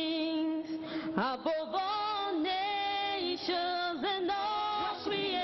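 A woman singing a slow worship song solo into a microphone. She holds a long note that ends about half a second in, then sings gliding melodic phrases with more held notes.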